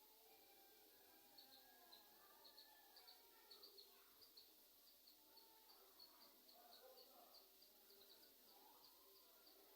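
Faint birds chirping: short high chirps repeated a few times a second, starting about a second in, over a soft background hiss.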